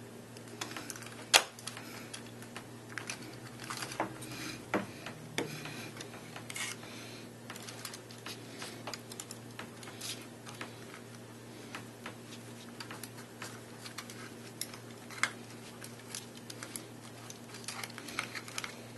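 Small plastic parts and wires of a robot arm kit being handled and pushed into place: scattered light clicks and taps over a steady low hum, with one sharper click about a second in.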